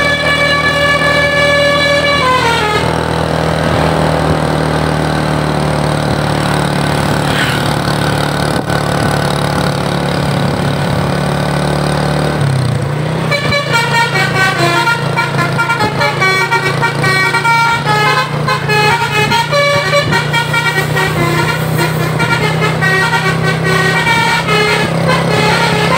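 Bus's Basuri telolet horn, a multi-trumpet musical air horn. It holds a chord that slides down in pitch and stops about three seconds in. After about ten seconds of the bus's engine running, it plays a quick melody of changing notes from about halfway through to the end.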